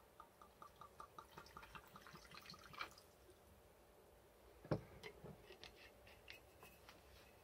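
Faint light ticks, about five a second, drawing closer together and louder for nearly three seconds. Then, about halfway through, one sharper knock, followed by a few soft scattered clicks.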